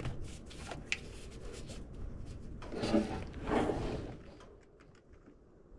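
Handling noises from parts and tools being moved: a sharp click about a second in, then two louder rubbing clunks around three seconds in, after which it goes quiet.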